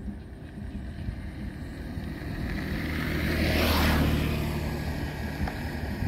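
An engine passing by: its noise swells to its loudest about four seconds in and then fades, over a steady low rumble.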